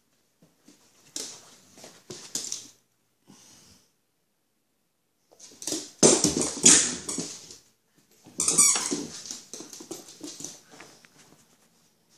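A dog making noisy breathing sounds in irregular bursts, loudest a little past halfway through.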